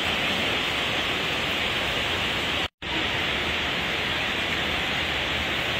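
Steady hiss of heavy rain, with a brief dropout about halfway through.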